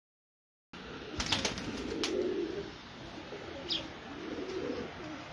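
Domestic pigeons cooing in low, wavering calls, with a few sharp clicks about a second in.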